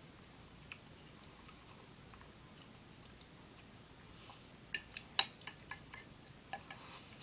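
Cutlery clinking and scraping on a plate: after a few quiet seconds, a quick run of sharp clicks and taps begins about two-thirds of the way in.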